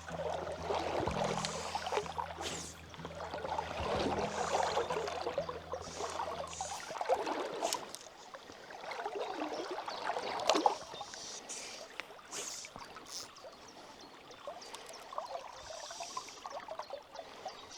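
River water rushing and splashing, swelling and easing in waves, with a few sharp clicks. Low background music under it stops suddenly about seven seconds in.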